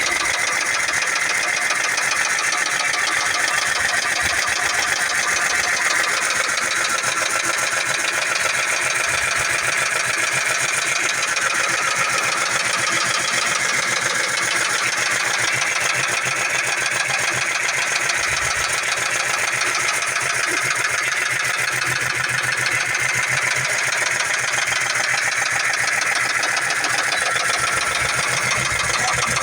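2004 Ford Mustang V6 (3.9-litre) engine idling steadily with a rapid, even knocking under the running, which the owner suspects is rod knock.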